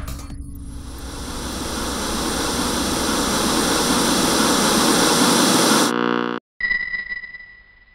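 TV-static hiss sound effect that swells louder over about six seconds, then cuts off abruptly with a short electronic buzz. After a brief gap, a single high electronic tone sounds and fades away.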